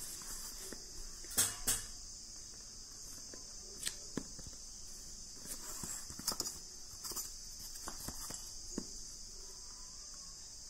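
Steel ruler and pencil handled on a sheet of paper: scattered clicks and light knocks as the ruler is set down and shifted and the pencil taps and draws along it, the loudest a pair of knocks about a second and a half in. A steady high hiss runs underneath.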